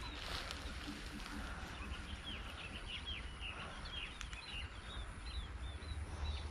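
Quiet outdoor ambience with a low rumble, and a bird calling a run of short, falling chirps, several a second, starting about two seconds in.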